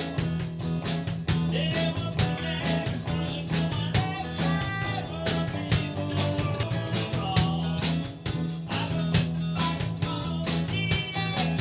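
Live rock band playing: two electric guitars over electric bass and a drum kit keeping a steady beat.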